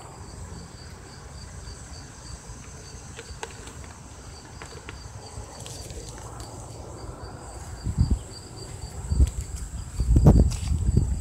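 Insects chirping steadily outdoors, one of them in an even pulse of about three chirps a second. In the last few seconds, the handheld phone's microphone picks up several loud low bumps and rubbing as the phone is swung about.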